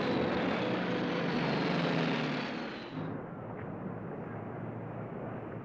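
Steady drone of aircraft engines, with music fading under it in the first half. About three seconds in, the sound turns duller.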